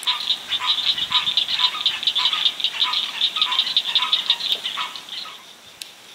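Loud chorus of calling swamp animals: a fast rattling buzz with a lower note pulsing two or three times a second, fading out about five seconds in.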